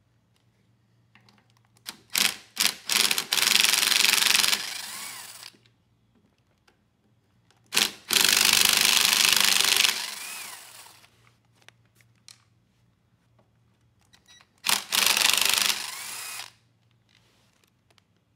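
Cordless power driver with a socket extension spinning out the bolts that hold the air filter housing and carburetor, in three runs of a few seconds each. Each run starts with a few short trigger blips and ends with a falling whine as the motor winds down.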